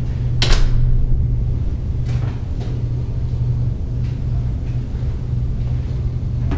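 A steady low hum, with one sharp, loud scrape about half a second in, then a few lighter footsteps on concrete.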